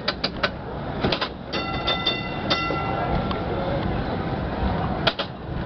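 Heritage tram running along, its bell struck in quick repeated strokes: a rapid run at the start, more strokes with a ringing tone about a second and a half in, and two strokes near the end.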